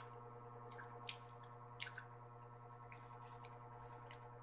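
Faint wet mouth sounds of someone eating santol fruit: a few short smacks and squishes about one, two and three and a half seconds in, over a steady low hum.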